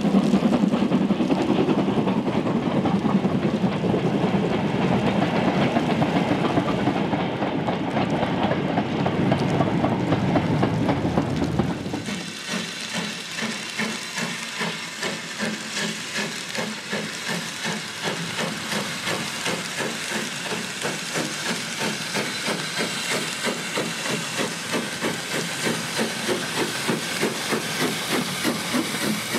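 Steam locomotive working: a loud, dense rumble for the first twelve seconds or so, then, after an abrupt change, a steady rhythmic chuffing exhaust beat with hissing steam.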